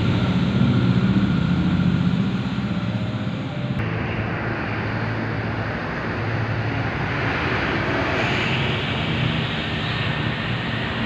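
Steady low engine hum over background noise, changing abruptly about four seconds in.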